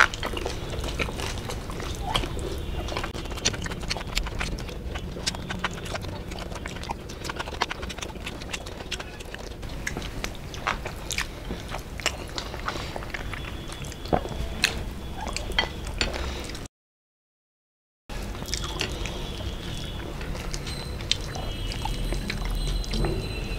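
Close-miked eating by hand: wet chewing, lip smacks and fingers squelching rice and curry, in a run of small clicks. The sound cuts out completely for about a second and a half, some seventeen seconds in.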